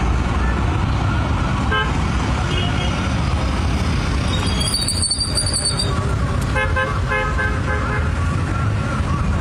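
Road traffic running on a city street, with several short car horn toots and a brief high-pitched tone about five seconds in.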